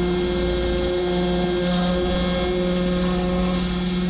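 Pressure washer running steadily: a constant engine hum with a hiss of water spray over it.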